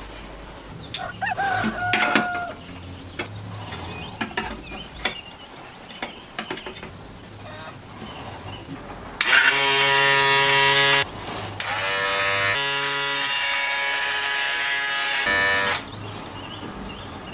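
Small plastic clicks and knocks as batteries are fitted into the battery holders of a homemade air conditioner. About nine seconds in, the unit switches on with a loud, steady electric buzz for its first test. The buzz breaks off briefly and runs for about six seconds before it cuts off.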